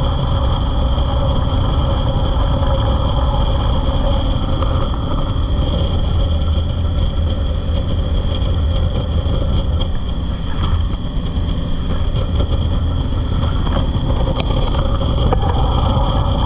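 Jet boat engine running hard at speed, a loud steady drone mixed with the rush of wind and water spray.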